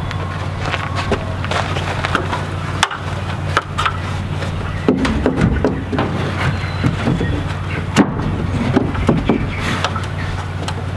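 Wooden board knocking and scraping against a plank wall as it is lifted into place and held there. There are sharp knocks about three seconds in and again near eight seconds, over a steady low hum.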